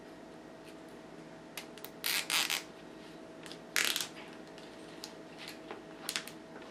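Nylon zip tie being ratcheted tight by hand: short rasping zips, two close together about two seconds in and another about a second and a half later, with a few light plastic clicks near the end.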